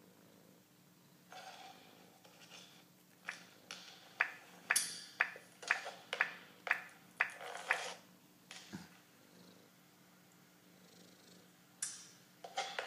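A run of sharp clicks, about two a second for several seconds, then two more near the end, as a cat's paws press the keys of a laptop keyboard, including the volume keys, which turn the sound down to mute.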